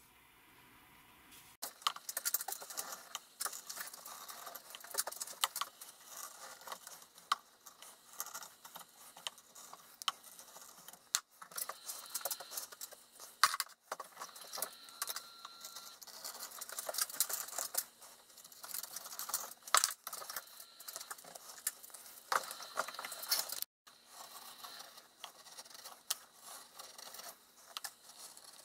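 Wooden-handled chisel paring and scraping wood out of the drilled hole in a birch log held in a bench vise: a long run of crisp scraping cuts and small clicks, cut off abruptly a few times.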